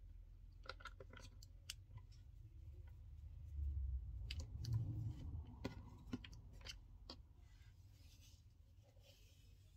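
Faint, scattered sharp clicks and taps of a small metal swivel snap-hook clasp being handled as cotton cord is threaded through it on a wooden tabletop, with a low dull rumble in the middle.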